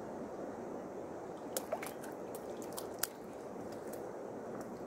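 Steady rush of running water, with a few short sharp clicks and small splashes about one and a half to three seconds in.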